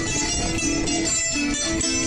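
Live music from two small guitar-type string instruments, plucked and strummed in a steady rhythm.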